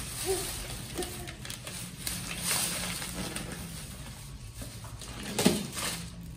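Thin plastic shopping bag rustling and crinkling irregularly as a toddler handles it and rummages inside to pull out a boxed present. There are a few short vocal sounds from the child and one louder brief sound about five and a half seconds in.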